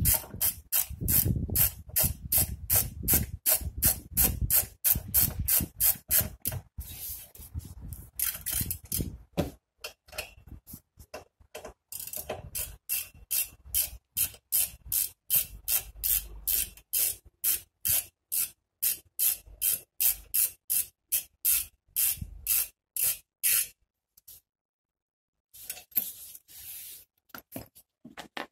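Ratchet wrench being worked back and forth on a rear brake caliper's bolts, each return stroke a quick burst of pawl clicks, about two to three strokes a second. It stops for a moment about three quarters of the way through, then starts again.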